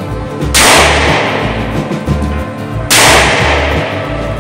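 Two .38 Special revolver shots from a Taurus 856 Defender, about two and a half seconds apart, each with a sharp crack and a long echoing decay in an indoor range. Background music with a steady beat plays underneath.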